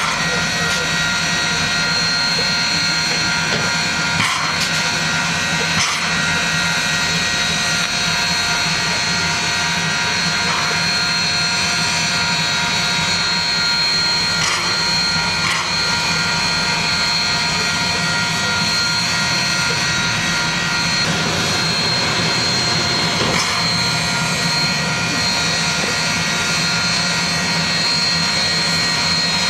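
Union Pacific 844, a 4-8-4 Northern-type steam locomotive, moving at a crawl and giving off a steady loud hiss with several constant whining tones and an occasional faint knock.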